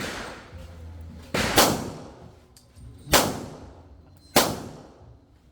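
Four sharp explosive bangs, each echoing away over about a second: two close together about a second and a half in, then single ones about three seconds and four and a half seconds in.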